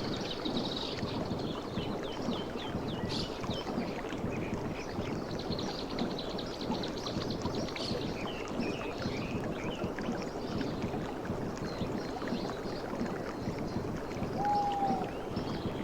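Sea water washing and lapping steadily, with small birds chirping high above it and one short whistle near the end.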